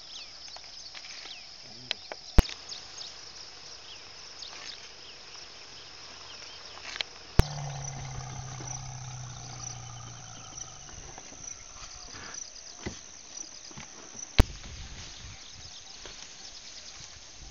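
Steady high-pitched insect chorus in grassland, running throughout. Three sharp clicks come about 2.5, 7.5 and 14.5 seconds in, and a low hum is heard for about three seconds after the second click.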